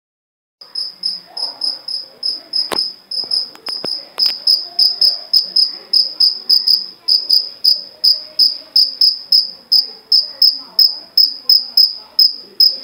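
A cricket singing, a steady run of short, high chirps at about three a second, made by rubbing its wings together. A sharp click comes near the third second, followed by a few fainter ticks.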